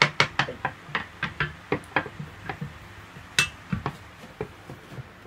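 Metal and hard plastic parts of a Flair manual espresso press clicking and clinking as it is handled and fitted together. An irregular run of short knocks and clicks, with one sharper, ringing metallic clink about three and a half seconds in.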